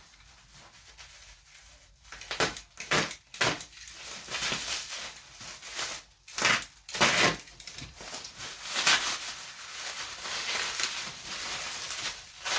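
Packaging being pulled off and unwrapped by hand, in irregular crinkling and tearing rustles that start about two seconds in.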